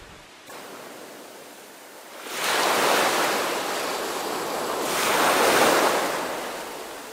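Ocean surf: a low wash of sea noise, then two waves swelling up and washing in, one after the other.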